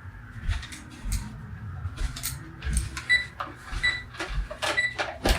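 Clicking and knocking on a plastic talking alarm clock as it is handled and pried at, with short electronic beeps from the clock about three times, roughly one every 0.8 s, from about three seconds in.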